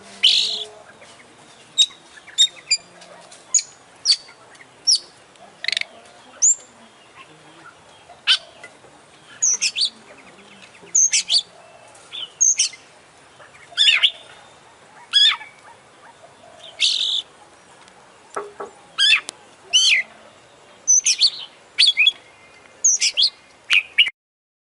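Oriental magpie-robin (kacer) singing: short, sharp whistled phrases and chirps, roughly one a second, full of varied notes. The song cuts off suddenly near the end.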